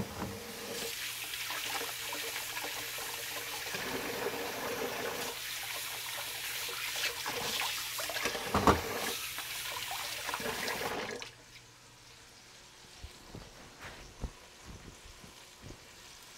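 Kitchen tap running into a stainless steel sink while hands are washed under the stream, splashing unevenly. The water shuts off suddenly about eleven seconds in, leaving faint rustles and small knocks as the hands are dried on a cloth towel.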